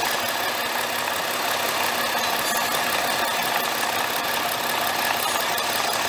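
Ford Fusion V6's electric radiator cooling fan running steadily over the idling engine, switched on by jiggling the fan module's connector. It cuts in and out with a loose contact in that plug, which has let the engine overheat.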